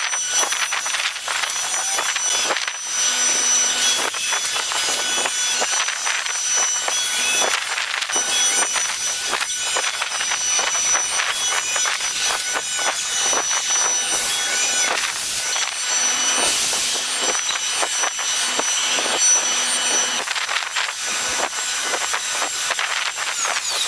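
Five-axis CNC router spindle running and cutting wood: a steady high-pitched whine with a continuous hiss of cutting, its pitch sliding now and then.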